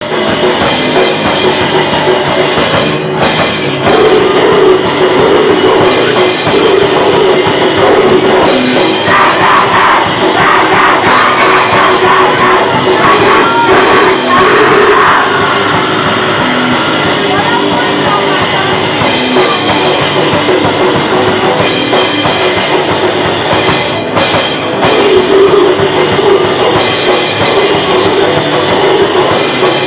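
Live punk rock band playing: electric guitar, drum kit and sung vocals, loud and dense, with a couple of brief stops in the playing.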